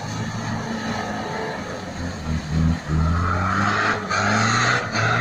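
Mitsubishi Pajero engine revving hard off-road, its pitch jumping up and down about two seconds in. From about three seconds a loud hissing noise of tyres on the ground joins it.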